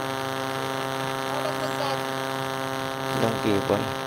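A steady hum made of many evenly spaced tones. About three seconds in, a short bit of voice rises above it.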